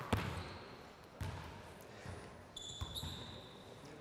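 Three sharp volleyball impacts echoing in a large sports hall: one right at the start, one about a second in, and one near three seconds. Sneakers squeak briefly on the court floor just before the third impact.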